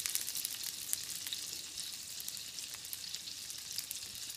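Beyond Burger patties and a green onion pancake frying in oil in two pans: a steady sizzle full of fine crackles.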